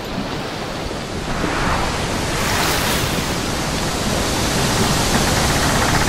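Ocean surf rushing steadily, swelling louder about a second and a half in.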